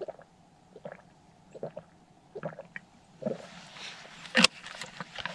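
A person chewing a Larabar, a soft date-based snack bar, close to the microphone, with short moist chews coming a little more than once a second. About three seconds in, louder noise sets in, with a sharp click about a second later.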